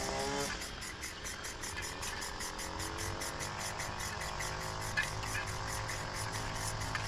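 Insects chirping in a fast, even rhythm of about five high-pitched pulses a second, over a low steady hum.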